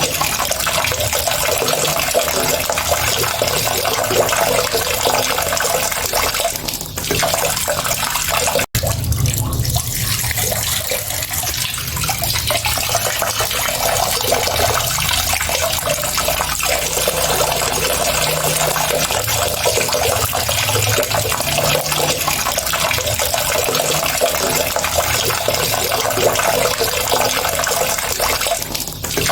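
Water running steadily, a continuous splashing rush, with a momentary break about nine seconds in.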